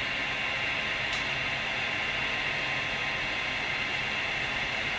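Vertical machining centre running a facing pass, its spindle turning at about 1260 rpm while the X axis feeds: a steady whirring hiss, with one faint tick about a second in.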